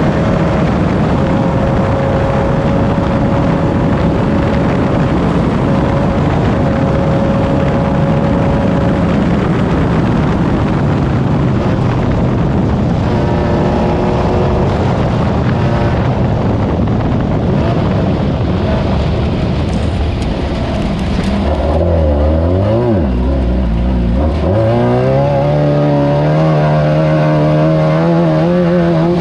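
Class 9 off-road race buggy at speed, its engine running under load amid loud rough noise from the terrain and chassis. About 22 seconds in the revs drop sharply and climb back, then rise steadily as it accelerates.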